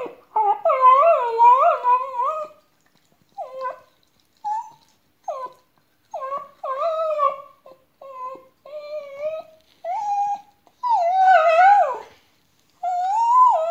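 Small long-haired dog whining and crying in a run of high, wavering whines, some drawn out and some short with pauses between, the loudest about two-thirds of the way through. It is the distress crying of a dog left behind when its owner has gone out.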